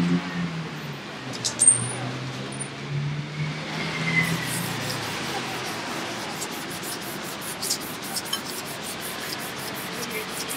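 Street traffic: a vehicle engine's drone fades out about halfway through, followed by rapid light ticking at about five ticks a second.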